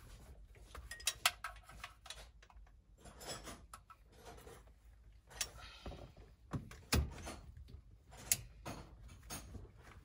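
Hand tools and metal parts clinking and tapping during engine work on a freshly painted engine block, with scattered sharp clicks and one heavier knock about seven seconds in.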